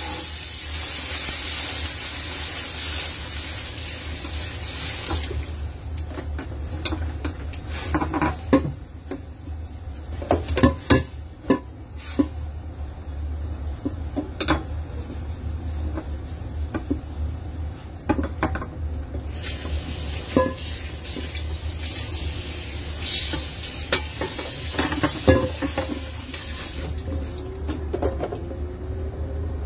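Wok cooking: stretches of hissing sizzle, with scattered clicks and knocks of a utensil against the pan, over a steady low hum.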